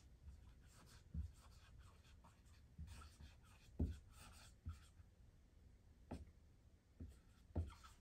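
Dry-erase marker writing in cursive on a whiteboard: faint, irregular strokes and light taps of the pen tip.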